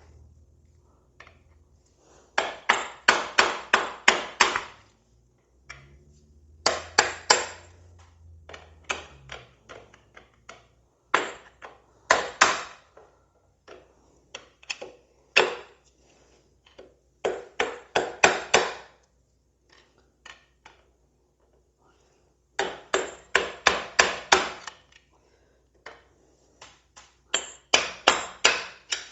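Hammer striking metal in quick runs of four to eight light, ringing blows, about five a second, with pauses between: bending back the soft lock tabs on the bolts of a 2005 Harley-Davidson Fat Boy's primary drive.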